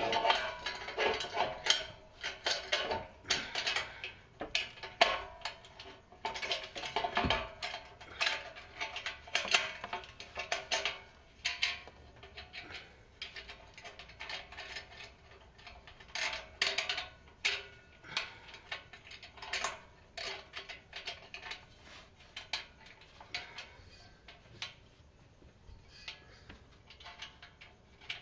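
Irregular metallic clinks and clicks of a steel V-band exhaust clamp being handled and fitted around the pipe joint, easing off near the end.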